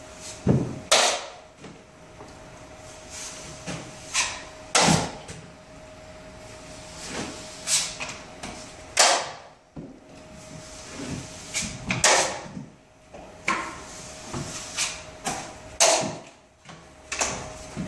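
Steel drywall taping knife scraping joint compound along drywall inside corners in short, irregular strokes, with sharp knocks of metal tool on metal as the knife is loaded and wiped on the mud pan.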